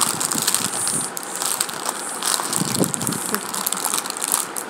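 A crinkly plastic snack wrapper rustling and crackling in irregular bursts as a toddler's hands grip and shake it.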